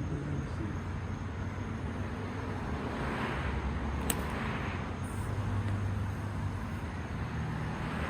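Outdoor background noise with distant road traffic swelling and fading twice, and a single faint tick about halfway through.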